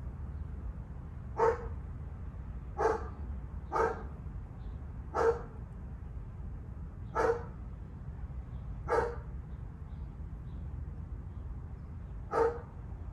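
An animal giving seven short single calls, each a fraction of a second, spaced irregularly one to three seconds apart, over a steady low rumble.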